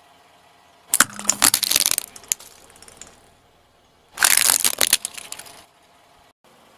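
A car tyre rolling over shiny red Christmas baubles and crushing them: two bursts of sharp cracking and crunching, about a second in and again about four seconds in, as the thin shells shatter.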